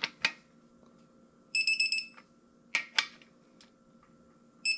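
Two high electronic beeps, each about half a second long, the first about one and a half seconds in and the second near the end. Around them come a few sharp metallic clicks from a wrench worked on the bolts of a small-block engine's camshaft thrust plate.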